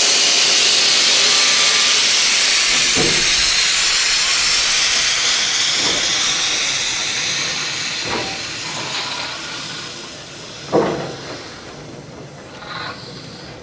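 Steam hissing out around the cylinders and driving wheels of steam locomotive No. 563, loud at first and slowly dying away. Four dull knocks come at intervals of two to three seconds, the last the loudest.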